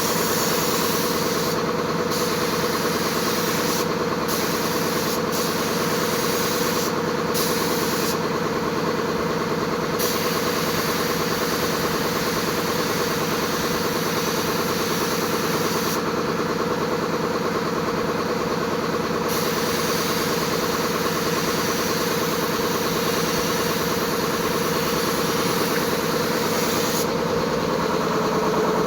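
Steady mechanical drone of an air compressor running, with the high hiss of a spray gun spraying the coating. The hiss stops briefly several times, longest for a few seconds about a third and two thirds of the way in.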